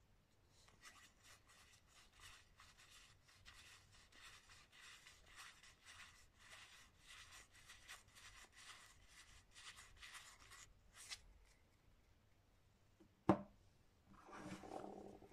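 Faint rustling of playing cards being slid apart and flipped through by hand, card edges rubbing in quick soft strokes. Near the end comes a single sharp tap, then a brief rustle.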